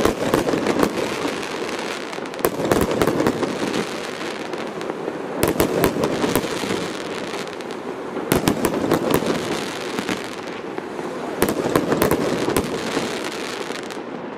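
Fireworks bursting overhead: a dense, continuous crackling of crackle-effect stars, broken by sharp bangs, the loudest about five and a half and eight seconds in.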